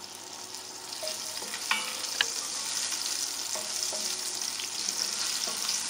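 Butter melting and sizzling in hot oil in an enamelled cast-iron cocotte, stirred with a wooden spoon. The sizzle is a steady hiss that grows a little after the first second, with a couple of light clicks about two seconds in.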